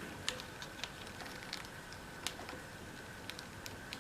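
Scattered light clicks and taps of hands handling the plastic quick-release cord hook on an upright vacuum cleaner, over a faint steady hiss.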